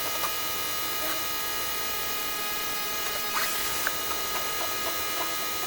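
Greenworks electric pressure washer running steadily: a constant motor hum with a high whine, over the hiss of water spray.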